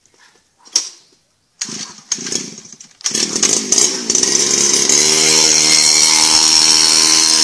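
Small two-stroke engine on a mini bicycle being started: a few clicks and short sputters, then it catches about three seconds in, revs up and runs at high revs with a steady buzz.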